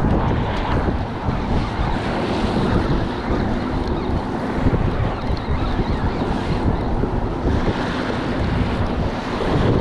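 Wind buffeting the microphone over small waves on choppy bay water, a steady gusty rush.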